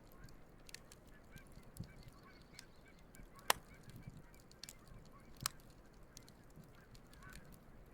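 Wood campfire crackling with scattered sharp pops, the two loudest about three and a half and five and a half seconds in, while geese honk faintly in the background.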